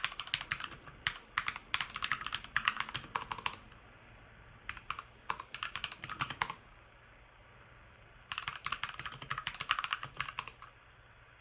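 Typing on a Keychron K2 mechanical keyboard fitted with new Keychron keycaps: rapid key clacks in three runs, with short pauses between them.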